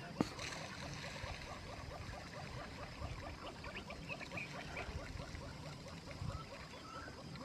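A chorus of small animals chirping, short calls repeated several times a second over a low background rumble, with one sharp click just after the start.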